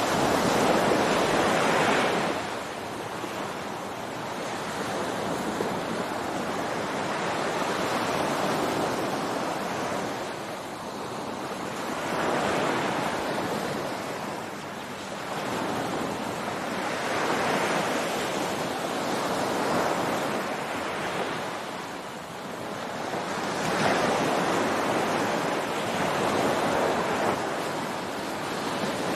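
Ocean surf breaking on a beach, waves washing in and drawing back every four to six seconds, the loudest surge near the start.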